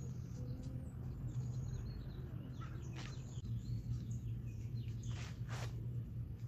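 Outdoor ambience: a steady low hum with small birds chirping now and then. A few brief rustles come near the middle and again about five seconds in.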